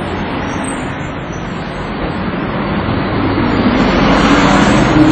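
Street traffic noise: passing vehicles, growing louder toward the end as a vehicle comes closer.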